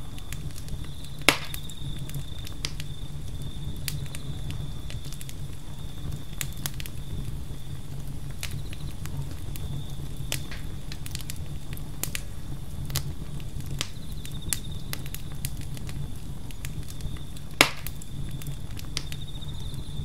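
Campfire crackling with scattered sharp pops, two much louder ones about a second in and near the end, over a low steady rumble. A continuous high cricket trill runs underneath.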